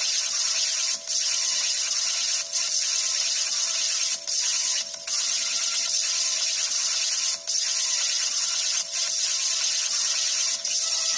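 Tesla coil running with a rotating corona discharge: a steady, hissing buzz with a steady tone under it, cutting out for a split second several times.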